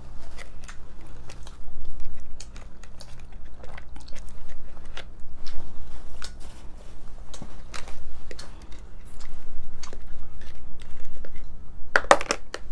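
Close crisp crunching and small clicks of broiler-toasted hard taco shells being handled and filled with toppings, with one louder, sharper crack near the end.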